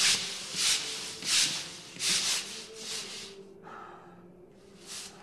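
Scrubbing brushes rubbed back and forth on a wet stone floor, a stroke roughly every 0.7 s for about three seconds, then a pause and one more stroke near the end.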